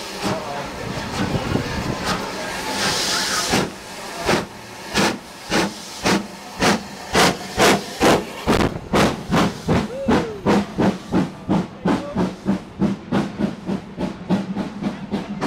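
Steam locomotive pulling away from a station. A steady hiss of escaping steam for the first few seconds, then exhaust chuffs begin about four seconds in, about two a second at first and quickening to about three a second as the engine gathers speed.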